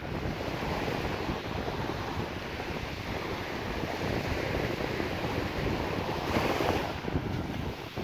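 Sea waves washing onto the beach, with wind buffeting the phone's microphone; one wave breaks more loudly between six and seven seconds in.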